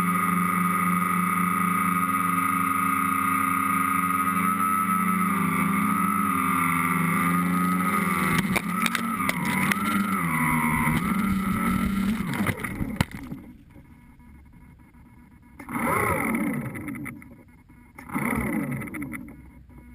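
Tricopter's electric motors and propellers droning steadily, the pitch wavering as the throttle changes. About thirteen seconds in it sets down and the motors cut, then they spin up briefly twice and wind down in pitch.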